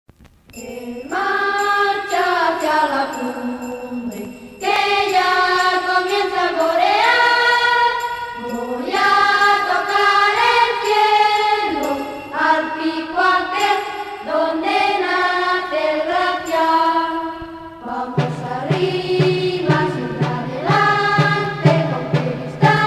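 Background music led by a choir of voices singing in long phrases; a steady low pulsing accompaniment comes in about eighteen seconds in.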